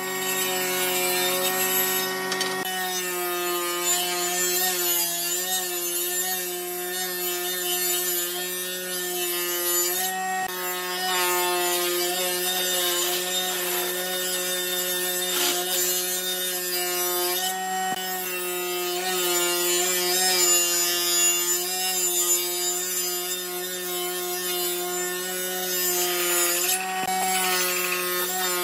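Table saw running and ripping a wooden board into strips: a steady motor hum that wavers slightly as the blade cuts, under a rasping cutting noise.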